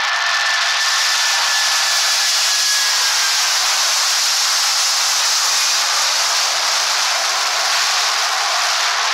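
Jet airliner engines at takeoff thrust: a loud, steady rushing noise, with a faint high whine that slides slightly down and fades out about three seconds in.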